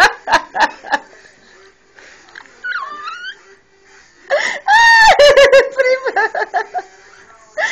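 Hearty, high-pitched laughter in rapid ha-ha pulses: a burst that trails off in the first second, a lull, then a loud burst about five seconds in.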